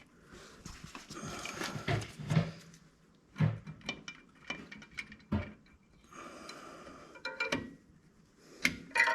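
Drum brake parts being fitted by hand: scattered sharp metallic clicks and knocks as the shoes and hold-down pin are seated, with soft rubbing and breathing between them.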